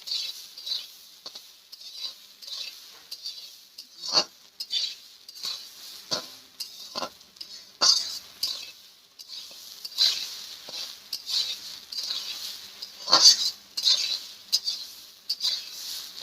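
Spatula stirring and scraping chopped banana stem as it fries in a pan, in short irregular strokes about once or twice a second, with a few louder clanks against the pan.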